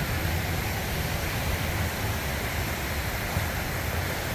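Ocean surf breaking on a sandy beach, heard as a steady wash of noise, with wind rumbling on the microphone.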